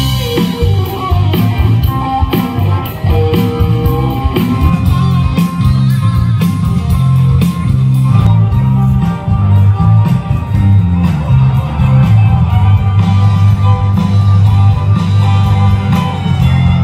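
Loud live country band playing through a PA: electric guitars, bass and drums, with a fiddle and pedal steel guitar in the line-up.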